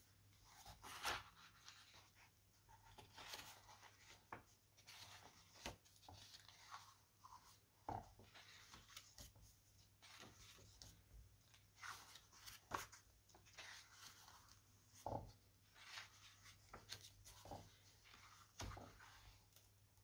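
Paper pages of a hardcover book being turned by hand: faint, irregular swishes and rustles, with a few soft thumps as pages settle or the hands touch the book.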